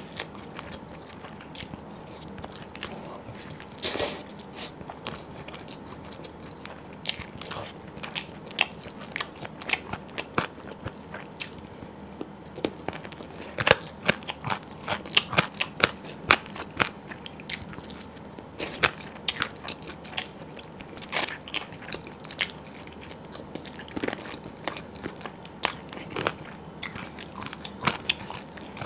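Close-miked eating sounds of a person biting meat off a curried chicken drumstick and chewing it, a stream of sharp, irregular mouth clicks that come thickest around the middle.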